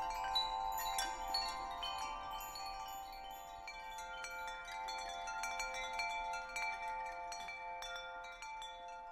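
Wind chimes ringing: many overlapping random strikes over a few long sustained tones, growing gradually softer.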